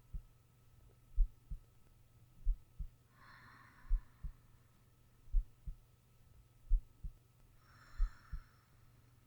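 A sleeping person's heartbeat, a slow, regular double thump (lub-dub) about every 1.3 seconds. Two soft breaths come about four and a half seconds apart, one a little past a third of the way in and one near the end, over a faint steady hum.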